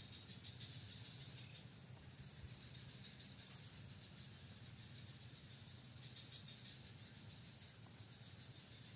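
Faint, steady insect drone: a constant high-pitched buzz over a low background hum, with no clear single event.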